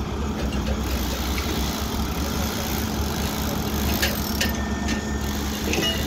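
Small crawler bulldozer's diesel engine running steadily as it pushes a pile of soil.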